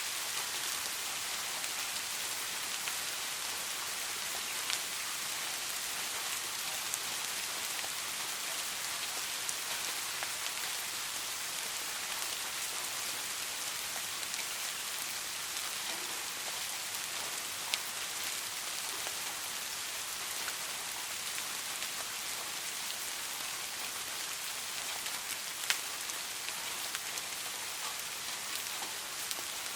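Steady rain falling, an even hiss with scattered sharper drop impacts, a few louder single drops standing out.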